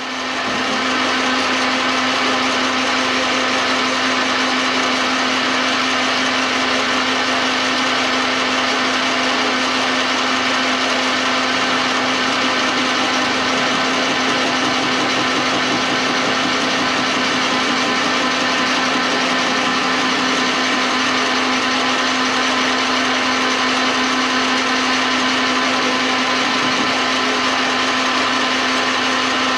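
An old metal lathe starting up and running steadily: a constant motor-and-gear hum with a broad whirring hiss over it, unchanging throughout.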